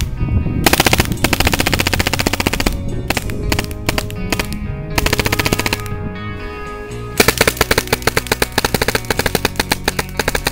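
Tippmann 98 Custom paintball marker with an APE electronic trigger firing long, rapid strings of shots, about 15 balls a second, in several bursts. Background music plays underneath.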